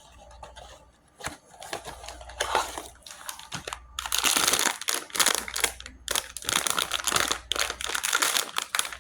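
A blind-box toy package being opened by hand: a few light taps and clicks, then steady crinkling of the wrapping from about four seconds in.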